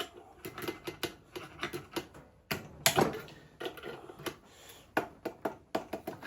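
Irregular metallic clicks and clinks of a spanner and gear puller being worked on the crankshaft gear of a Petter A1 stationary engine, pulling the tight gear off the shaft.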